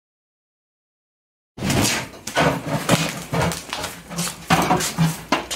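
Silence for about a second and a half, then a busy run of knocking and clattering as assorted items are rummaged through and lifted out of an old glass fish tank.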